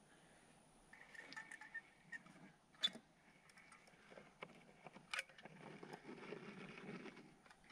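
Mostly quiet, with a few sharp clicks from a caulk gun being worked along plywood seams. The two loudest come about three and five seconds in, with soft rustling handling noise after them.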